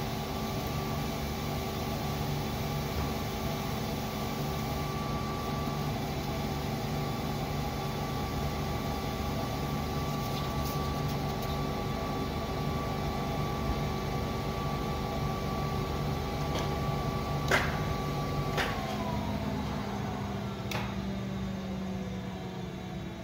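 Seypa 92 PMC guillotine paper cutter's motor running with a steady hum. Near the end there are two sharp clicks, and the machine is switched off: its hum falls in pitch as the motor runs down.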